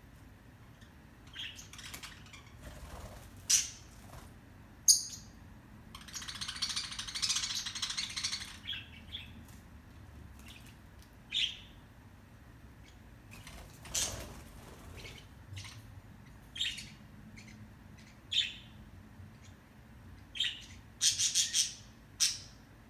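Pet budgerigars calling: scattered sharp chirps and squawks, with a few seconds of dense warbling chatter about six seconds in and a quick run of four loud calls near the end.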